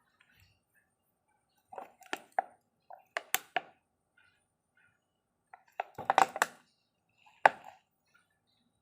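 Sharp clinks and knocks of metal engine parts being handled and set down on a workbench, in scattered small groups, the loudest a single knock about seven and a half seconds in.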